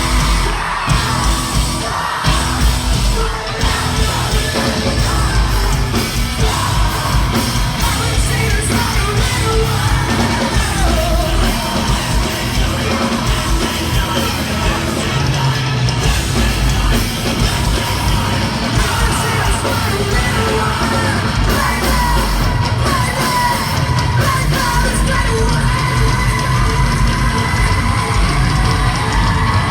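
Post-hardcore rock band playing live, loud and continuous, with a singer yelling and singing over heavy drums, bass and guitars.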